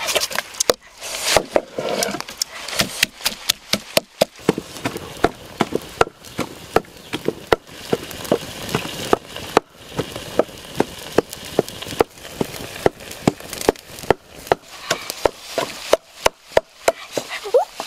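Wooden pestle pounding in a mortar in a steady rhythm of about two knocks a second.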